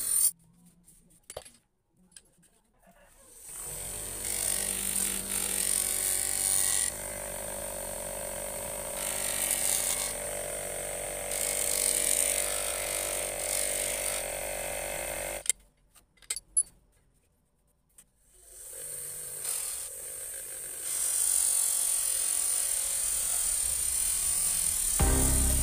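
Steel knife blade held against the spinning wheel of a small bench grinder: a steady grinding hiss over the motor's hum. It drops out twice, briefly about a second in and again for a few seconds past the middle.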